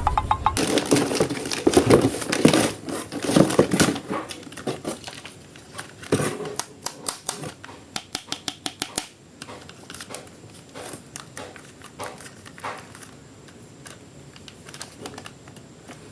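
Toy packaging being handled and opened: plastic crinkling, with many sharp clicks and rustles, dense over the first few seconds and sparser after.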